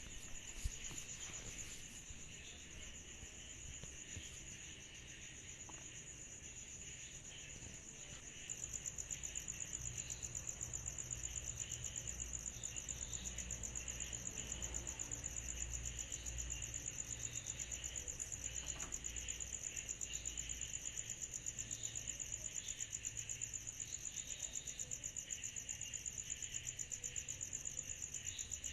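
Summer-night chorus of cicadas: a high, rapidly pulsing trill over a lower steady buzz, with a faint low rumble beneath. About eight seconds in, the high trill grows louder.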